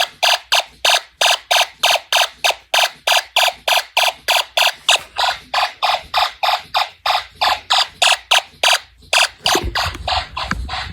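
Snap Circuits fire alarm's electronic sounder going off in a fast, steady train of harsh beeps, about four a second.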